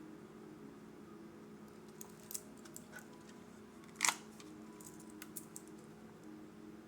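Small clicks and taps from a metal wristwatch being handled and turned over, with one sharper click about four seconds in. A steady low hum runs underneath.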